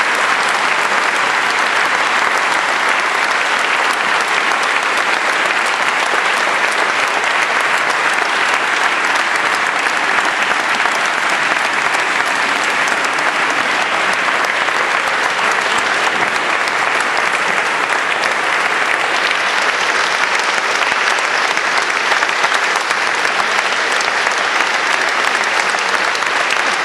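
Large audience applauding steadily after a speech.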